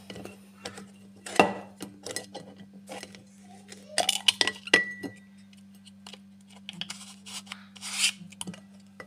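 A white plastic lid handled against a glossy pink mug: a string of clicks, scrapes and light clinks, with one clink ringing briefly about five seconds in. A steady low hum sits underneath.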